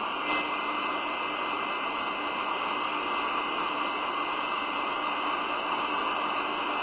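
Steady static hiss with a faint steady tone underneath.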